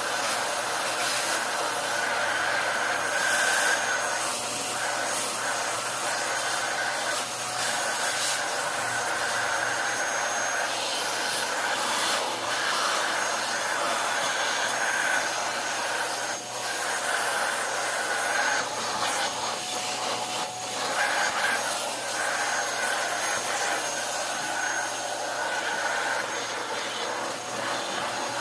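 A small electric blower motor runs steadily, rushing air with a constant whine. The level dips and returns now and then.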